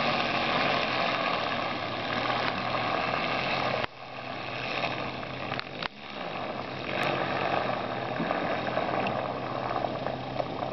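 Gas string trimmer engine, rigged as a canoe outboard, running steadily while it drives the canoe along. Its sound drops off suddenly twice, about four and six seconds in, and builds back each time.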